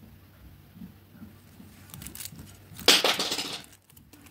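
Plastic nail-swatch tips on clear sticks clattering and rustling together as they are handled, with faint handling noise at first and one loud rattle lasting under a second about three seconds in.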